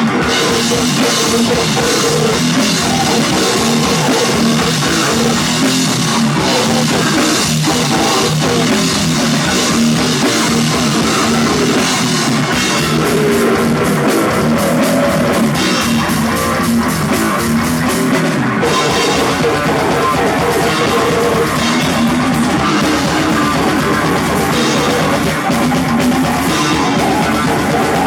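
A rock band playing live with a drum kit and electric guitars, loud and dense without a break.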